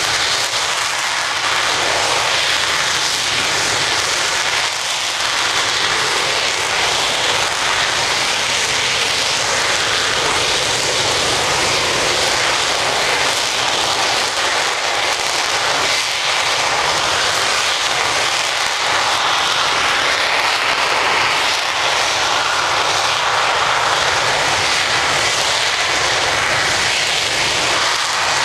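Jet engines of a line of BAE Hawk T1 trainers running on the ground at a distance: a steady, high-pitched rushing noise that holds level throughout.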